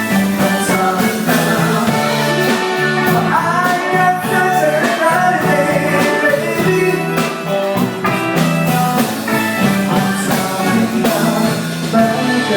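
A band playing a song, a lead voice singing over sustained bass notes, guitar and regular drum hits.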